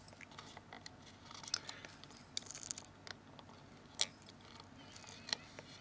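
Faint scattered clicks and light scrapes of a small phone part, the home-key ribbon cable, being handled and fitted onto the locating pins of the Galaxy S2's case, with one sharper click about four seconds in.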